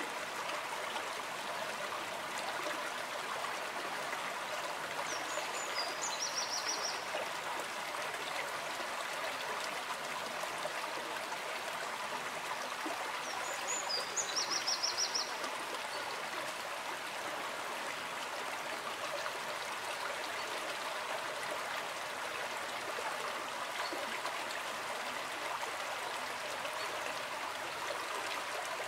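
Small rocky forest stream running steadily over stones. A bird gives a short, high trill twice, about six seconds in and again about halfway through.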